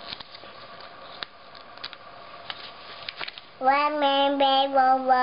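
Faint rustling and crinkling of the paper pages of an instruction manual being handled, then, about three and a half seconds in, a baby's voice holding one long, steady vowel sound for about two seconds that drops in pitch at the end.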